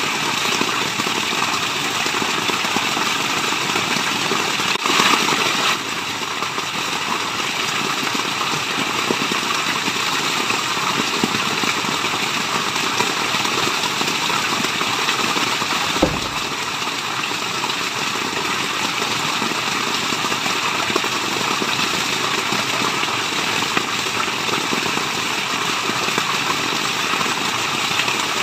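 Steady rushing of falling water, an even white-noise wash. A brief swell comes about five seconds in, and a single sharp click about halfway through.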